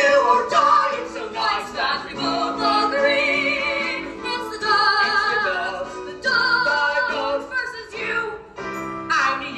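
Musical-theatre duet sung live with accompaniment, the voices holding long notes with vibrato.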